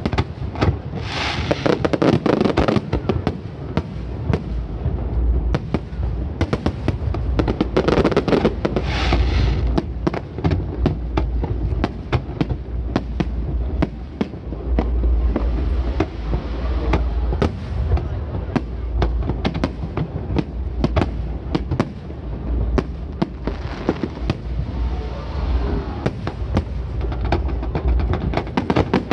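Aerial fireworks show: a dense, continuous barrage of shell bursts and quick pops, one on top of another, over a steady low rumble, with heavier volleys about a second in and again around eight seconds in.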